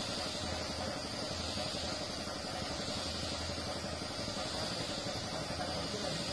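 Compressed-air spray gun with a gravity-feed cup hissing steadily as it sprays white duco paint onto a wooden cabinet, with a faint low hum underneath.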